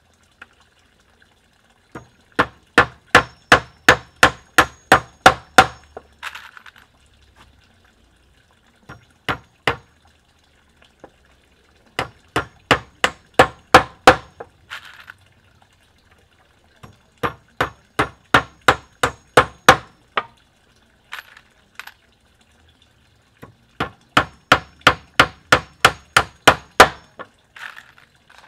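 Claw hammer driving nails into pallet-wood deck boards: four runs of about ten quick, ringing blows each, roughly three a second, with a few lighter single taps between the runs.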